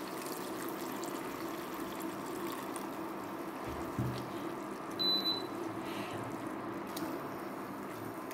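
Chicken broth pouring into a frying pan of fried onions and bubbling in the hot pan, a steady trickling sound. A soft knock about four seconds in and a short high beep about five seconds in.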